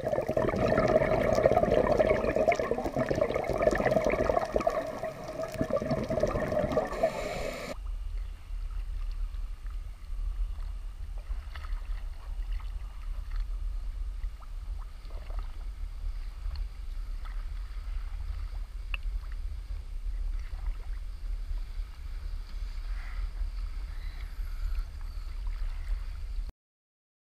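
Loud underwater bubbling and rushing water for about eight seconds. It cuts off abruptly to a muffled low rumble of choppy sea water at the surface, with faint splashes as a dive boat comes close.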